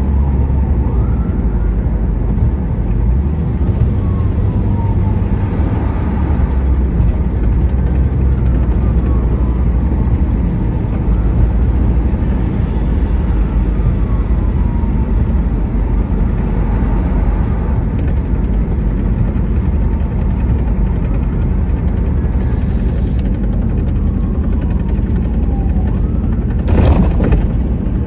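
A car being driven, with a steady low rumble of engine and road noise. A faint falling whine comes back every few seconds, and a single louder knock sounds near the end.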